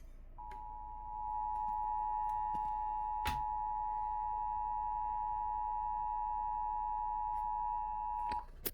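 Emergency Alert System attention signal: two tones (853 and 960 Hz) sounding together as one steady beep for about eight seconds, getting louder about a second in and cutting off just before the end, with a sharp click partway through. It announces an emergency alert, here a severe thunderstorm warning.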